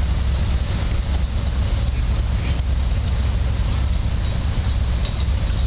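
Engine of an antique Ingram road roller built by Acme Iron Works, running with a steady low rumble as the roller moves slowly along a dirt road.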